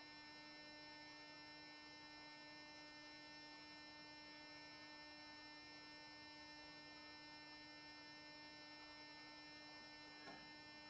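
Near silence: a faint, steady electrical hum made of a few fixed tones.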